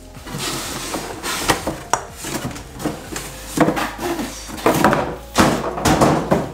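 Corrugated cardboard boxes scraping and sliding against each other as a tightly fitting inner box is pulled out of its outer shipping box, with several knocks and thumps of cardboard on the counter.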